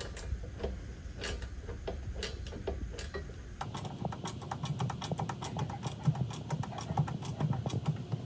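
Hand ratchet clicking as a 13 mm bolt is turned into a steel bumper bracket: a few scattered clicks at first, then from about midway a quick, uneven run of clicks as the ratchet is swung back and forth.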